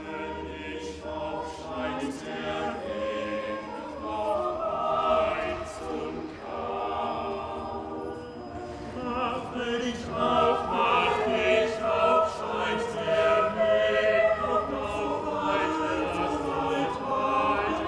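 A choir singing, several voices holding long notes together in harmony.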